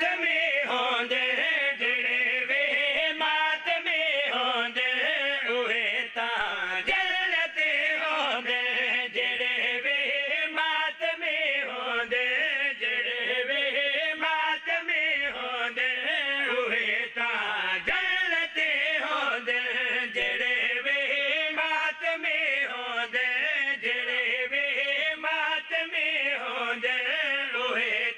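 A man chanting a Punjabi devotional qasida into a microphone in long melodic phrases that rise and fall with hardly a break.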